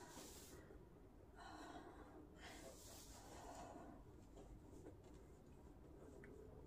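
A person breathing faintly but heavily, with two long breaths between about one and a half and four seconds in.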